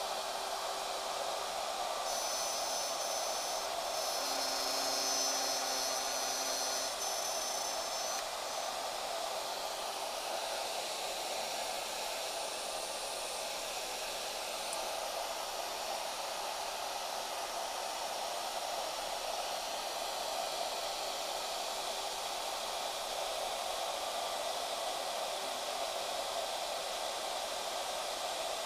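Shaper Origin handheld CNC router running steadily, its spindle whirring as it routes an inside cut in wood. A higher whine joins about two seconds in and fades a few seconds later.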